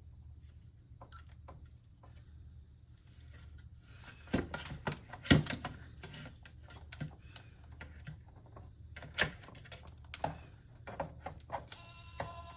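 Clicks and clunks from an opened cassette data recorder's mechanism as it is handled and its buttons pressed, in two clusters with the loudest knock about five seconds in. Near the end a steady whine with several tones starts, the recorder's motor running.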